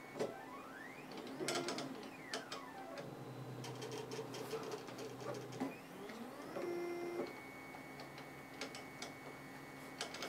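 Darwin RepRap 3D printer's stepper motors whining as the axes move, the pitch sweeping up and down as they speed up and slow down. Several sharp clicks sound along the way.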